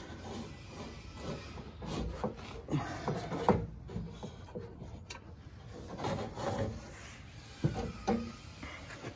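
Irregular scraping, rubbing and light knocks of hands working inside a steel car door, shifting the window regulator arm in its channel while trying to fit a nylon rivet. The sharpest knocks come about three and a half seconds in and again near the end.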